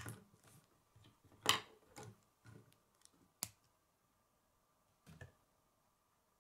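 Plastic K'nex pieces clicking and knocking as they are handled and snapped together by hand: a handful of irregular clicks, the loudest about a second and a half in, a sharp snap a couple of seconds later, and a last click near the end.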